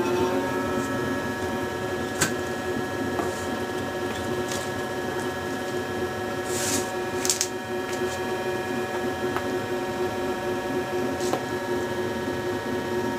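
Steady hum of a running workshop machine. A few light clicks and taps, and a short rustle about halfway through, come from cut leather pieces and a plastic cutting die being handled on the bench.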